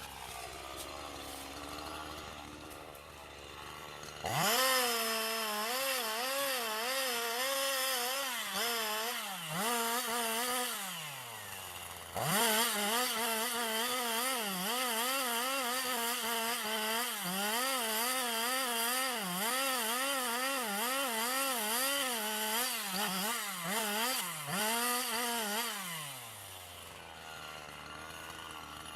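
Chainsaw cutting wood at high revs, its pitch wavering as the chain loads up in the cut. About ten seconds in it drops off, revs back up around twelve seconds, and winds down near the end.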